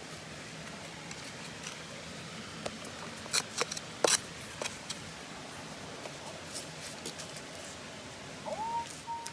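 A digging tool scraping and clicking against stones and grit in a hole, loudest about three to four seconds in. Near the end a Minelab Excalibur metal detector gives a short rising beep and then a steady tone, signalling a target in the hole.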